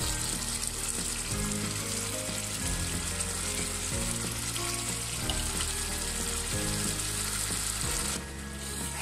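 Spice paste bubbling and sizzling in hot oil in a pan as the masala is fried down for a beef curry, with soft background music underneath. The sizzle drops away near the end.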